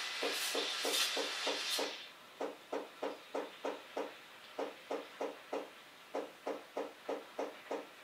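Krups XP 3440 steam wand hissing as it froths milk in a stainless pitcher, dropping away about two seconds in. Through it and after it runs a steady train of short low pulses, about three a second.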